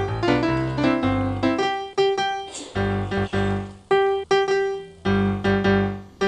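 Background music: a bouncy piano tune played in short phrases with brief pauses between them.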